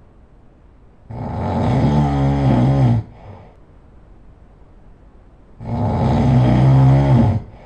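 A person snoring loudly: two long snores about four and a half seconds apart, each lasting about two seconds, with a wavering pitch. Each snore is followed by a brief, softer breath.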